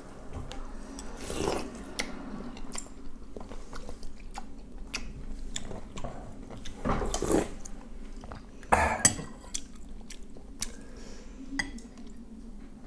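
Close-miked eating of wonton soup: soft chewing and slurping of broth and dumplings from a metal spoon, with scattered sharp clinks of the spoon against the ceramic bowl.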